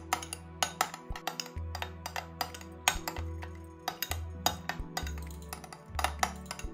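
A metal spoon clinking and scraping against a small ceramic bowl while stirring a thick ketchup-and-mayonnaise sauce: many quick, irregular clinks. Background music with held bass notes plays underneath.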